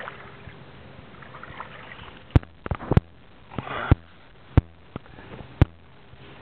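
About six sharp knocks spread over a few seconds, the loudest near the middle, with a brief rustle among them, above a steady low hum.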